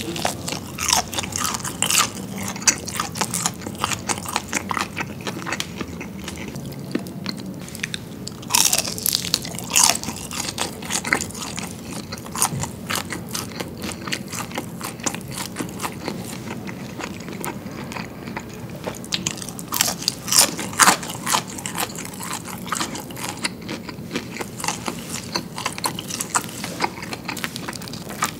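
Close-miked crunching bites and chewing of freshly fried chicken with a thin, crispy batter. There is a steady crackle of chewing, with louder crunching bites about nine seconds in and again about twenty seconds in.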